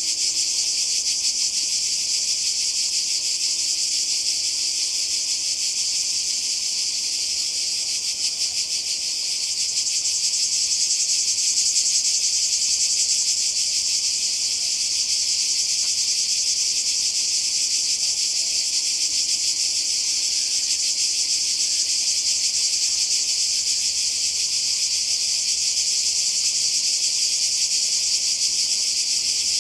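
A chorus of cicadas singing in a dense, continuous high buzz, swelling a little louder about ten seconds in.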